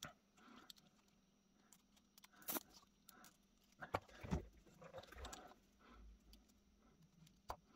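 Faint, scattered clicks and taps of small metal gun parts and hand tools being handled while an antique percussion pocket pistol is reassembled, with near silence between them.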